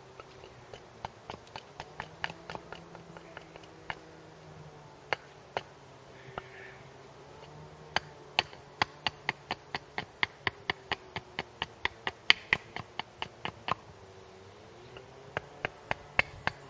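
Hatchet blade chopping into a wooden stick held on a chopping block, shaping a splitting wedge: light, scattered strikes at first, then a quick run of sharper chops about three a second from the middle on. A faint wavering hum lies underneath.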